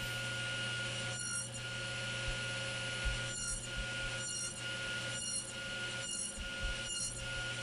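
Table saw running steadily while a finger-joint jig on a crosscut sled cuts the fingers into poplar box sides, one short cut about every second, six or seven in all.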